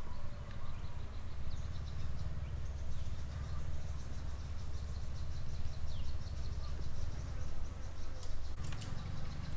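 Outdoor ambience: insects chirping in fast, even rows of high ticks, with a few short high bird calls, over a steady low rumble.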